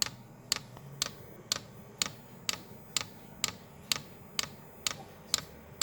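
Diesel heater's fuel dosing pump clicking steadily, about two sharp ticks a second, as it draws fuel up the line during start-up.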